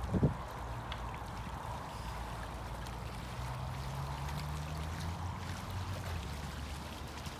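Steady river water running, with a low hum underneath. A brief low thump comes right at the start.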